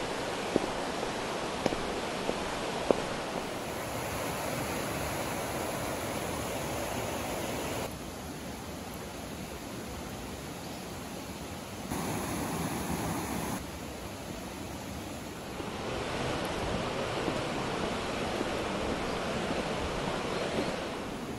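Mountain river rushing over rocks: a steady hiss of water that steps louder and quieter at several cuts. A few sharp clicks in the first three seconds.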